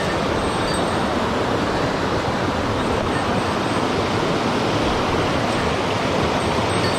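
Mountain stream rushing over rocks: a loud, steady rush of water.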